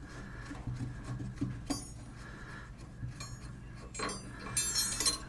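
Light metallic clinks and taps of hand tools, a wrench and socket being handled on the plug, with a few scattered clicks and a cluster of clinks near the end.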